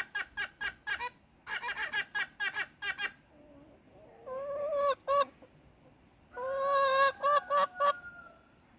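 Domestic hens clucking close up: two quick runs of short clucks, about four a second, in the first three seconds, then after a pause a few longer drawn-out calls, the last one rising and trailing off.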